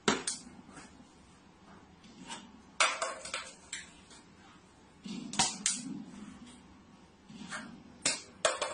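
A clear plastic bottle smacks a cat on the head with a sharp knock, followed by scattered light clinks and taps in small clusters about every two to three seconds.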